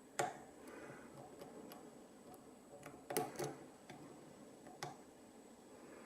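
Small metallic clicks and ticks of a hook pick and tension wrench working the pins of a Master Lock pin-tumbler lockout padlock during single-pin picking. There is a sharp click near the start, light ticks after it, a cluster about three seconds in, and another click near the end.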